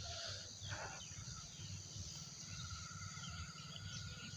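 Faint background ambience: a steady low hum with faint distant calls, including a thin wavering high tone through the middle.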